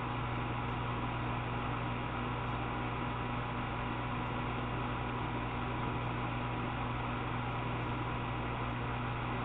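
Steady electrical hum with an even hiss, unchanging, with no distinct events.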